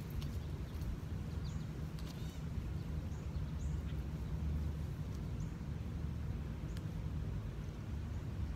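Outdoor ambience: a steady low rumble with a few faint, short bird chirps scattered through.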